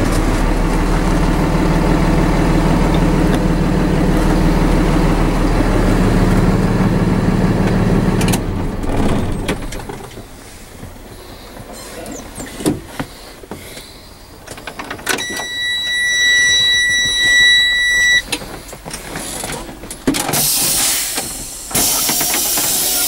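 Truck diesel engine idling, then shut off about eight seconds in. A few clicks follow, then a steady dashboard buzzer tone for about three seconds. Near the end comes a hiss of compressed air as the parking brake valves are pushed in to release the brakes for the air brake leakage test.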